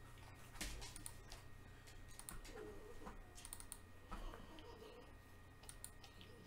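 Faint, irregular clicks and key taps from someone operating a computer's keyboard and mouse, over a low steady hum.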